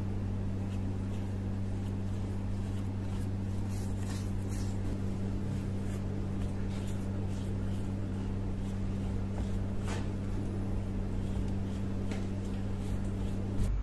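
A paintbrush dabbing liquid over a metal hammer head in a tray: faint wet brushing with a few small clicks, over a steady low hum that stops just before the end.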